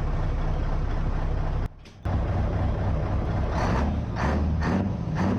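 IVECO V8 diesel truck engine running through open exhaust pipes, a deep steady exhaust sound that drops away briefly just before two seconds in. From about halfway, the exhaust comes in regular pulses roughly twice a second.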